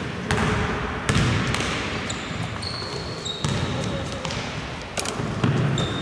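Basketball bouncing at irregular intervals on a hardwood gym floor, each bounce echoing in the hall, with short high sneaker squeaks.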